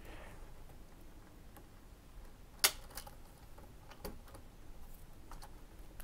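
Nylon trimmer line being handled and tied into a loop, with a few faint ticks and one sharper click about two and a half seconds in.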